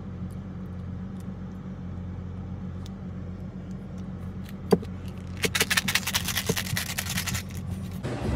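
Steady low hum of a car's engine idling, heard from inside the cabin. About five seconds in there is a sharp click, then roughly two seconds of rapid crackling rattle close to the microphone.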